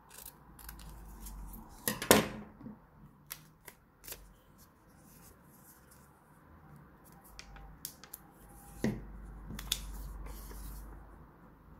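Scissors cutting through a paper pattern piece, then the cut paper pieces handled and rustled, with scattered small clicks. A sharp clack about two seconds in is the loudest sound, with another about nine seconds in.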